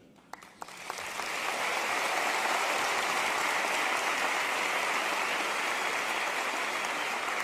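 Audience applause: a few scattered claps, swelling within the first second into a steady round of clapping from a large crowd.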